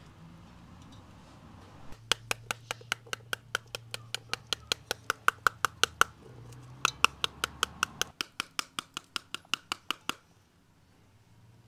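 A spoon rapping the rind of a halved pomegranate to knock the seeds out into a metal pot. The taps come fast and even, about five a second, in two runs with a short pause between them, and stop near the end.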